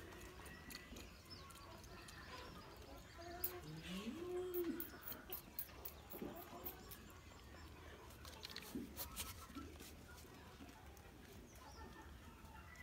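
Faint farmyard animal sounds: a few short low calls that rise and fall, mostly around the middle, with scattered light clicks.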